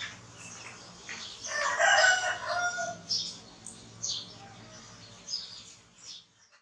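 A rooster crowing once, a call of about a second starting about a second and a half in, among several short high-pitched chirps.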